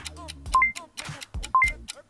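Background music with a steady beat, over which a short electronic two-note beep, a lower note then a higher one, repeats about once a second: a quiz countdown timer ticking off the answer time.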